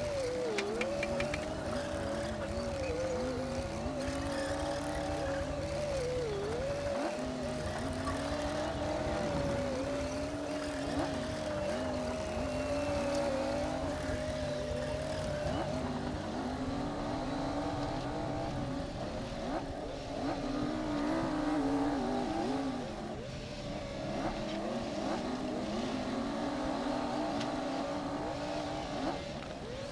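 Komatsu D60P bulldozer's diesel engine working under load, with a steady whine on top; its pitch sags briefly a few times, most clearly about a second in and about six seconds in, as the engine lugs.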